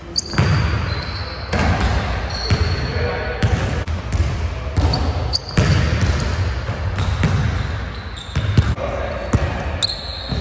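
A basketball bouncing on a hardwood gym floor, with repeated sharp knocks, sneakers squeaking briefly and footsteps as a player runs in for a dunk attempt.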